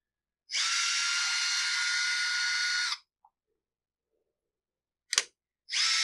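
Small cordless electric screwdriver running in two steady whining runs, backing out the two screws that hold a chainsaw's oil pump on. The first run lasts about two and a half seconds, the second starts near the end, and a short sharp click falls between them.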